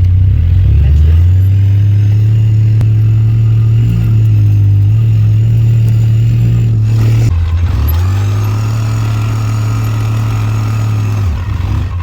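ATV engine running under way, a steady engine note. It steps up in pitch about a second in, dips briefly around seven seconds, then settles again.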